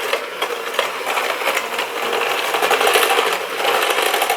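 Electric mixer running steadily, its beaters creaming butter and sugar into cookie dough.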